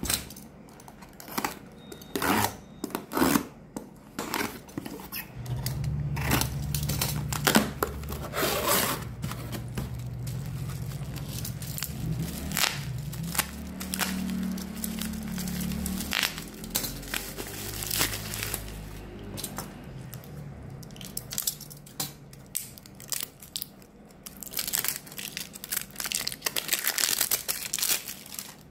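Hand unboxing noises: packing tape tearing and cardboard and plastic wrapping crinkling, with many scattered clicks and knocks from handling. A low steady hum sits underneath through the middle, and near the end there is a dense run of crackling.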